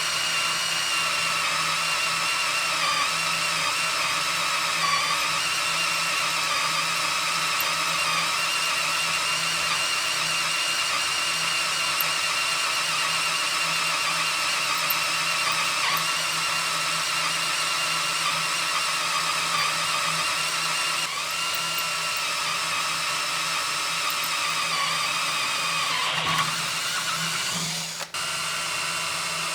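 Cordless drill running steadily while drilling into steel, its motor whine wavering slightly under load. Near the end the pitch sags, the sound cuts out for a moment, and it starts again a little quieter.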